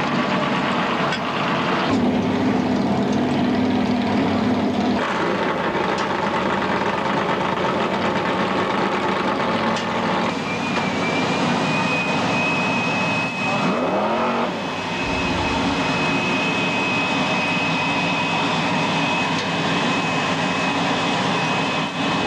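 An engine running steadily and loudly, with a thin high whine that comes in about halfway through and holds.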